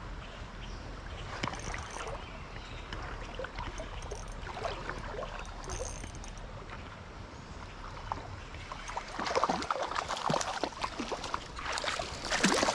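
Stream water running steadily, with a hooked trout splashing at the surface as it is reeled in; the splashing grows louder from about nine seconds in.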